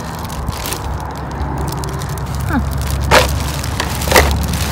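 Clear plastic bag crinkling and rustling as it is handled, with sharper crackles about three and four seconds in, over a steady low rumble.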